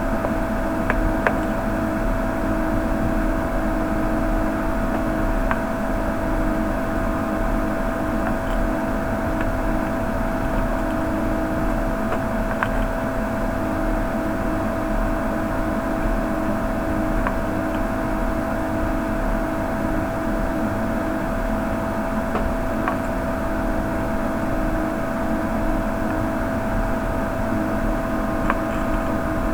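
Steady machine whirr with a constant high tone running through it, and a few faint light clicks.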